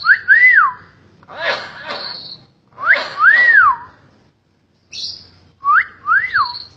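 Hill myna whistling: loud whistled notes that rise and fall, in three groups, with harsher raspy calls between them.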